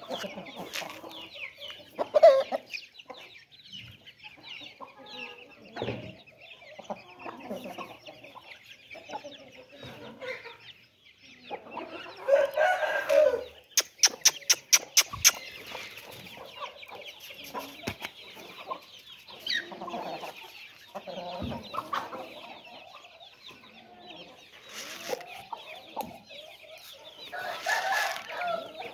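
Aseel chickens: hens clucking over a steady high cheeping of chicks, with louder calls about twelve seconds in and again near the end. A quick run of about eight sharp clicks comes about fourteen seconds in.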